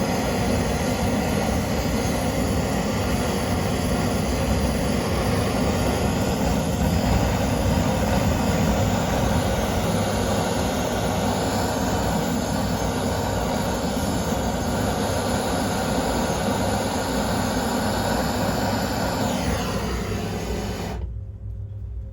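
Flame burning with a steady rushing noise, stopping abruptly near the end.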